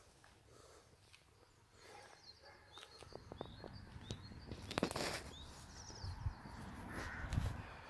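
Birds chirping in short high calls, with scattered clicks, a brief noisy rustle about five seconds in and a couple of low thuds near the end.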